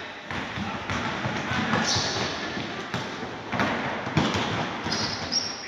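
Basketball being dribbled on the gym floor amid players' running footsteps during live play, a series of short thuds echoing in a large sports hall.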